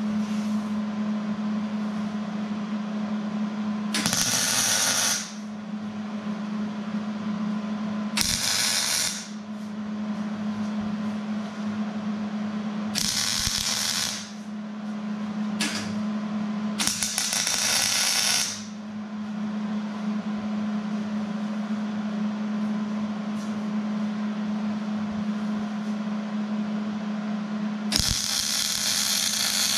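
Electric arc welder crackling as a steel pipe post is welded to a steel wheel rim: several short welds of one to two seconds each, then a longer continuous weld starting near the end, over a steady hum.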